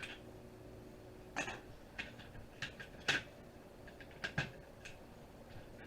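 Scattered clicks and knocks of a Zip drive's casing and parts being handled and pried apart after its screws are out, with a sharp pair of knocks about four seconds in and the loudest click about three seconds in.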